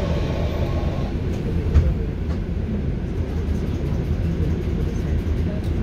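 Steady low rumble of a Scania articulated city bus idling, heard from inside the passenger cabin while the bus stands at a stop, with one brief knock a little under two seconds in.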